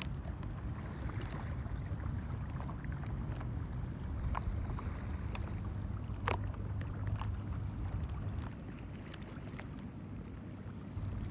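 Small ripples lapping against the side of a drifting inflatable stand-up paddleboard, with scattered light water plinks and one louder one about six seconds in, over a steady low wind rumble on the microphone.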